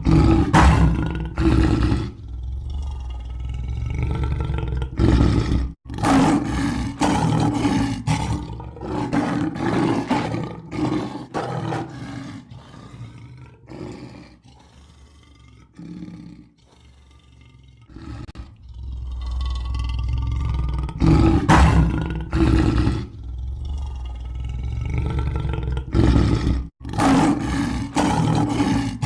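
Lion roaring, a run of repeated loud roars that ease to a quieter stretch about halfway through and then build again, with two abrupt cuts where the recording is spliced.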